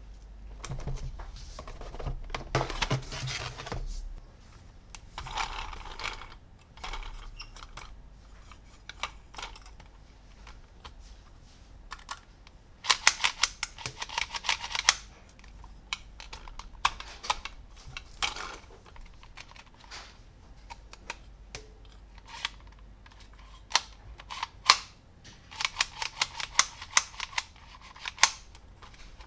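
Plastic toy parts and packaging being handled up close: bursts of rapid clicking and rattling, with scattered single clicks between them.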